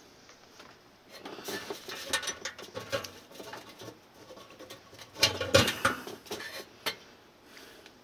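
A hand reaches into a gas water heater's sheet-metal combustion chamber while the safety device is being fitted, scraping, rattling and clicking against the metal parts. The sounds start about a second in and are loudest around five to six seconds, with one sharp click near the end.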